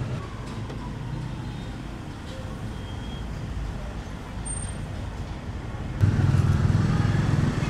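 A steady low rumble of background noise, louder from about six seconds in.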